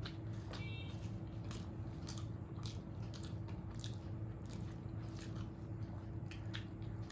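A person chewing a mouthful of rice mixed with fried neem leaves and aubergine (neem begun bhaja), with irregular soft crunches and wet mouth clicks.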